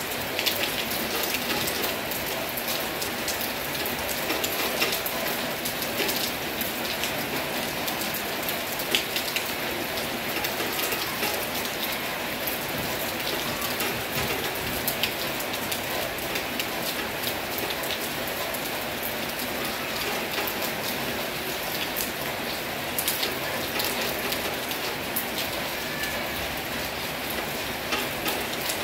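Heavy rain falling steadily, with many individual drops landing nearby as sharp ticks over the even hiss of the downpour.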